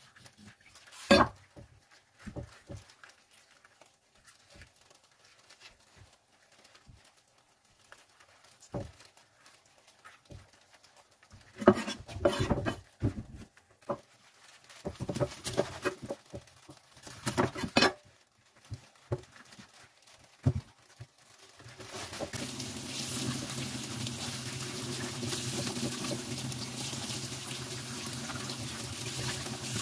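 Scattered knocks and scrapes of a kitchen knife and raw mackerel being handled on a wooden cutting board; the sharpest knocks are about a second in and near the middle. About 22 seconds in, a kitchen tap starts running steadily, its water splashing over a fish fillet in a steel sink.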